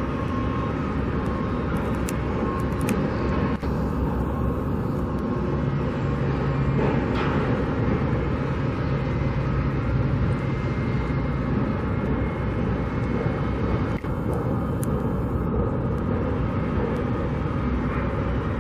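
Steady outdoor background noise, with a low engine-like hum for several seconds in the middle.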